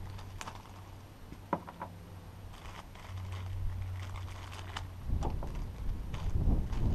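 Small parts being handled by hand, giving a few light clicks and crinkling sounds over a steady low hum. From about five seconds in, a louder low rumble comes in.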